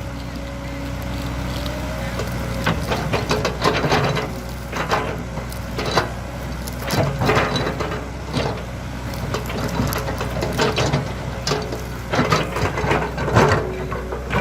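Excavator's diesel engine running steadily, with frequent irregular knocks, clanks and cracks from the machine at work.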